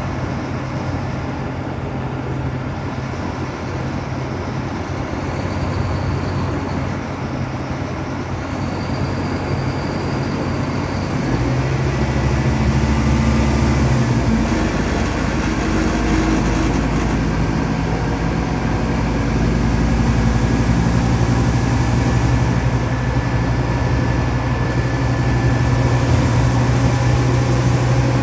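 Scania K360UA articulated bus heard from inside the cabin while under way: the diesel engine runs steadily, then takes up more load and gets louder about a third of the way in. Over it, several times, a high whine from the ZF automatic gearbox rises and falls.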